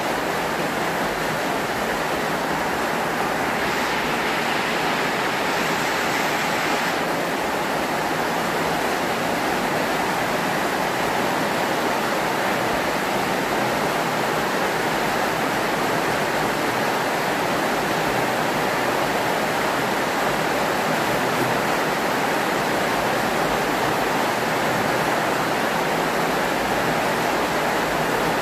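Heavy rain falling steadily, a continuous even hiss that turns a little hissier for a few seconds about four seconds in.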